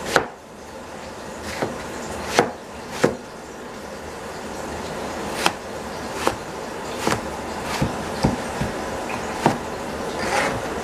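Cleaver chopping eggplant on a plastic cutting board: about a dozen sharp knocks of the blade hitting the board, spaced unevenly at roughly one a second.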